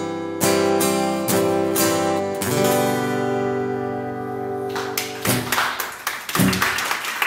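Steel-string acoustic guitar strummed through the closing bars of a song, ending on a chord that is held and rings out. About five seconds in, the chord gives way to audience clapping.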